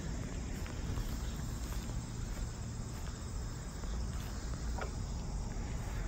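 Crickets chirping steadily over a low outdoor rumble, with a faint click about five seconds in.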